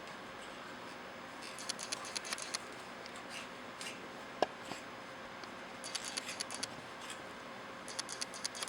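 Small plastic clicks and scraping as a cover is handled and fitted back onto a copier's developer unit. The clicks come in three quick runs, with one sharp single click between the first two.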